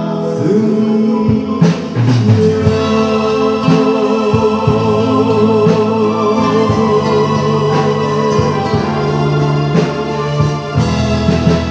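Man singing a Vietnamese song into a microphone with a live band accompanying him. A long wavering note is held through the middle, over a steady beat.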